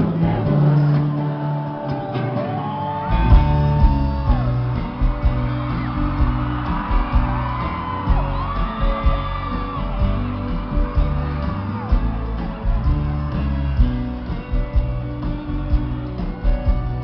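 Live sertanejo band music in a large hall: guitars, bass and drums under long held melody notes, with whoops and shouts from the crowd. The bass and drums come in about three seconds in.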